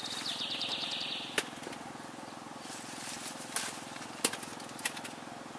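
Outdoor ambience with a steady low hum, a high buzzing trill for about the first second, then four sharp clicks or snaps spread through the rest.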